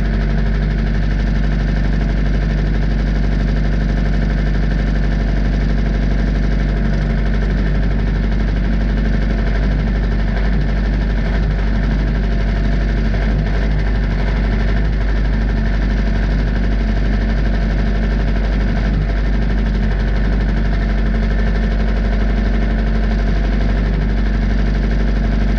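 Wood-Mizer portable bandsaw mill's engine running at a steady speed, a loud, even machine drone with no change in pitch.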